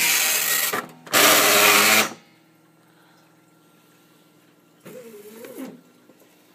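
Tandy TRS-80 Line Printer V dot-matrix print head printing, two loud passes of about a second each with a short gap between, as it runs lines of its offline self-test. A short, fainter sound with a wavering pitch follows about five seconds in.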